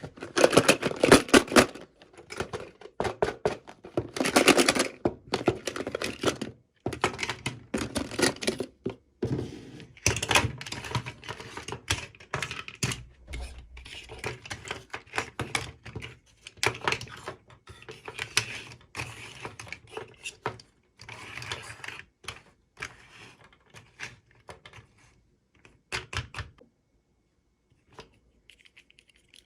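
Quick irregular clicks, taps and light knocks of small plastic toy pieces and packaging being handled, busiest early on and thinning out to a few scattered taps near the end.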